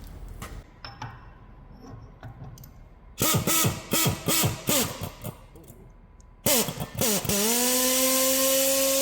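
Hand-held power tool triggered in several short bursts, its motor spinning up and down each time. Near the end it spins up and runs at a steady, even pitch, after a few light metal clicks and knocks.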